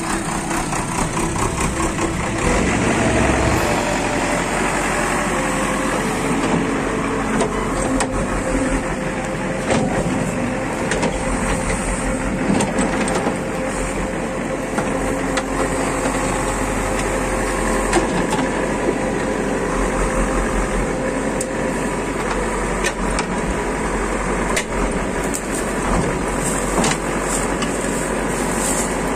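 JCB backhoe loader's diesel engine running steadily as the backhoe bucket digs into the earth, with scattered knocks and scrapes.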